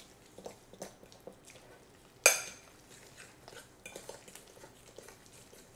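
A fork stirring a thick, creamy dip mixture in a ceramic casserole dish, with soft scrapes and small clicks against the dish. One louder, ringing clink comes about two seconds in.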